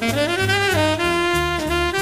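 Tenor saxophone soloing in a quick, unbroken phrase with bent notes, over walking double bass and drums in a live jazz quintet.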